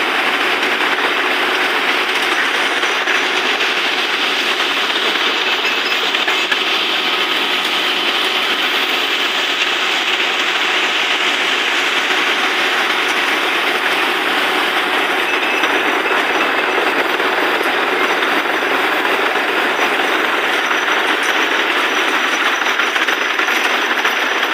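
Borewell drilling rig working steadily: a loud, continuous, dense mechanical rattle without a break.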